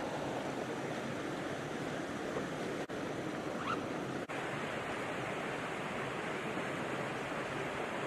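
Mountain stream rushing steadily over rocks and shallow riffles.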